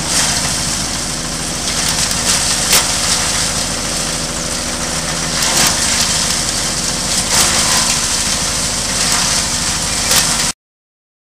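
Chaff-cutter machine running on its stationary engine, a steady engine drone with irregular crackling and knocks as straw or frond material is chopped. The sound cuts off suddenly near the end.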